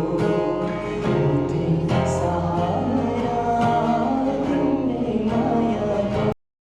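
A song with singing over plucked strings, cutting off suddenly into complete silence near the end.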